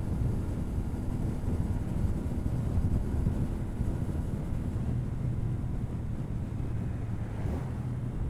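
CFMoto 450NK parallel-twin engine through its stock exhaust, running steadily under way, heard onboard with wind rushing over the microphone.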